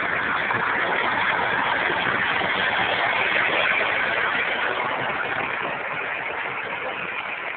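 Steady jet engine noise from a four-engine military transport plane flying overhead, fading slightly near the end as it moves away.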